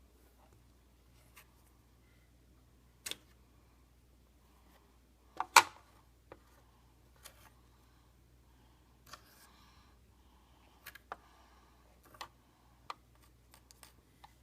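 Scattered clicks and taps of plastic Play-Doh tools and mold parts being handled, as the plastic knife cuts a shape and it is lifted out. One sharper knock about five and a half seconds in is the loudest.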